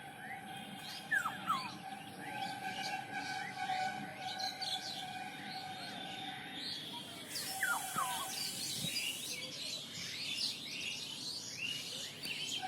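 Several birds chirping and calling at once, with many short overlapping notes over a steady high whistle-like tone. A quick downward-sliding call comes about a second in and again around eight seconds, and a brief high hiss lies under the chirping around the middle.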